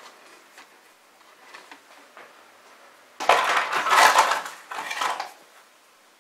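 Hands handling electrical wires in a grey plastic junction box: a few light clicks, then about two seconds of loud rattling and scraping of hard plastic and wire a little past the middle.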